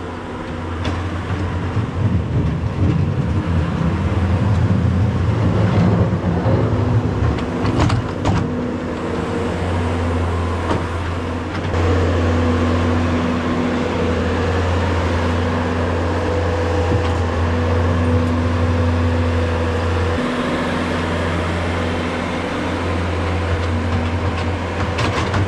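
Bobcat skid-steer loader's diesel engine running and working, its steady drone changing as the machine scoops a manure pile and carries loads to a spreader, with a couple of sharp knocks about eight seconds in.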